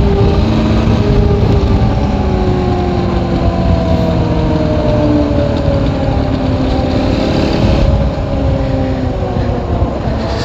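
Suzuki ATV engine running under way, its note sinking slowly and dropping again about eight seconds in, over a steady rush of wind noise.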